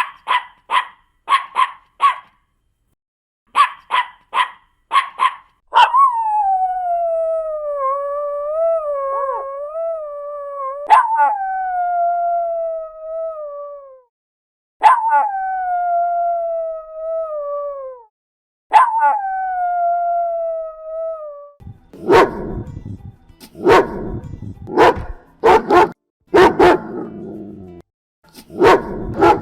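Dogs barking and howling. There are two quick bursts of short, high-pitched yaps, then a long howl that slowly falls in pitch, followed by two shorter falling howls. In the last several seconds come about seven deeper, rougher barks.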